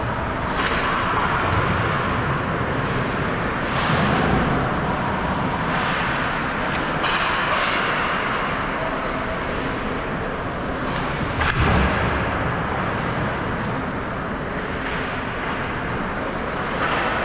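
Ice hockey play at rink level: skate blades scraping and carving on the ice in repeated hissing swells, over a steady rink hum, with sharp knocks of sticks and puck, the loudest about two-thirds of the way through.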